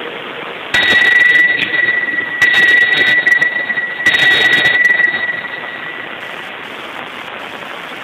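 Altar bell rung three times at the elevation of the consecrated host, each stroke a sharp strike followed by a steady high ringing that fades out about five seconds in.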